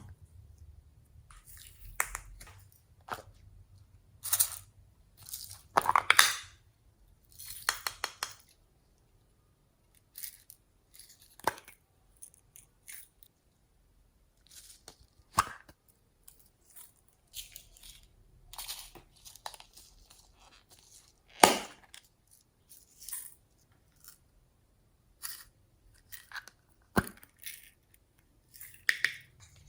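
Slime being squeezed and pressed by hand, giving irregular crackles, pops and crunches in short bursts with quiet gaps between.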